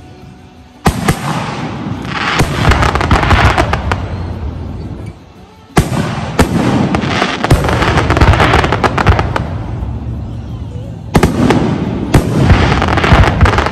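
Fireworks display: aerial shells bursting in three volleys. Each starts with a sudden loud bang, about a second in, about six seconds in and about eleven seconds in, and is followed by several seconds of rapid bangs and crackling.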